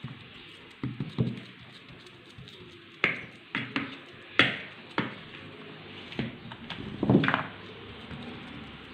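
Semolina dough for qalb el louz being pressed and patted flat into a baking tray: irregular taps and knocks, a few louder than the rest.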